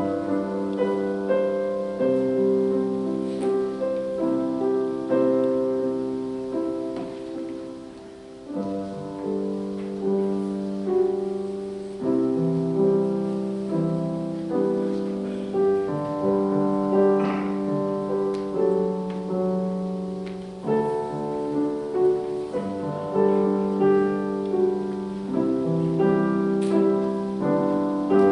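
Solo piano playing a slow, gentle piece of held chords, with a brief soft pause about eight seconds in.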